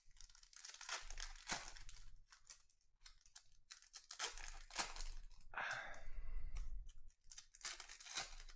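Trading-card packs being torn open and their shiny wrappers crinkled, in a series of short tearing and crackling bursts.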